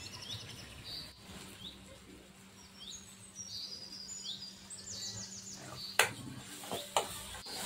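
Small birds chirping over and over, with a run of quick falling chirps near the middle. About six seconds in a metal spoon clanks sharply against the iron kadhai, the loudest sound, and clanks again more softly a second later.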